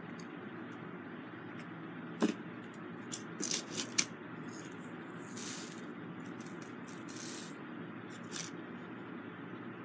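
Scattered small clicks and rattles of plastic diamond-painting drills and their tray as the drills are picked up and pressed onto the canvas. The sharpest clicks come about two and four seconds in, over a steady low background hum.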